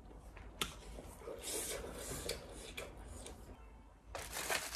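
Close-up eating and table sounds: chewing with a sharp click about half a second in, then near the end a louder, crisp crackling rustle as a sheet of dried laver (gim) is picked up to wrap a raw oyster.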